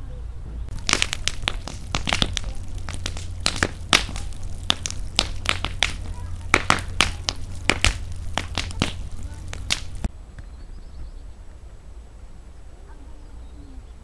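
Campfire of branches and logs burning hard, crackling and popping with many sharp, irregular snaps over a low steady rumble. The crackling starts about a second in and stops suddenly about ten seconds in, leaving only a faint background.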